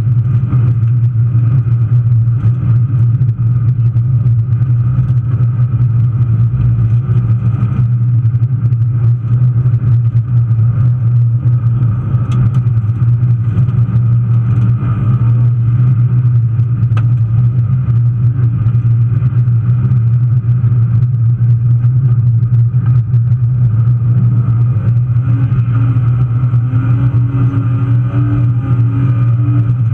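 BMW 325i rally car's engine running hard at speed, heard from inside the cabin as a loud, steady drone, with tyre and road noise from the snowy gravel surface.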